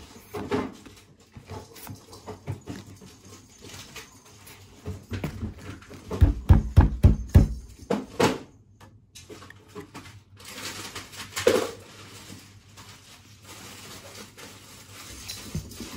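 Trading cards being handled and laid down on a cloth playmat, with a cluster of dull knocks about six seconds in.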